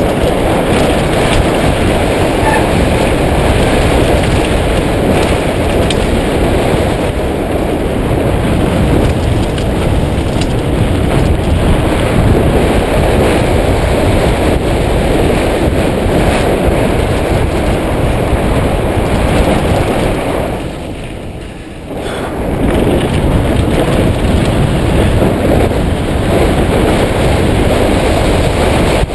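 Loud steady rush of wind on the microphone mixed with tyre and rattle noise from a mountain bike riding a dirt singletrack. It eases for a second or two about 21 seconds in.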